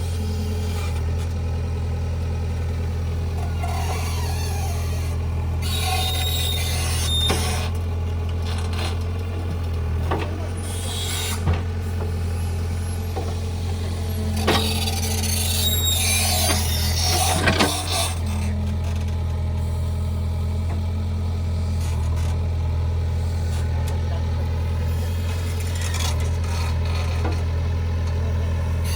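JCB 3DX backhoe loader's diesel engine running steadily while it works. Through the middle there are a few sharp metallic knocks and brief squeaks from the machine's working parts.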